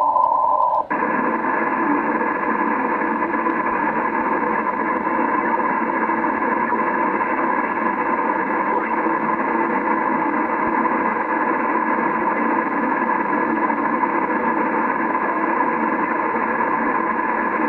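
Receiver audio from a Yaesu FT-950 HF transceiver being tuned across the 20-metre amateur band: steady static hiss with a few faint steady tones. About a second in, the sound switches from narrow and muffled to a wider, brighter hiss.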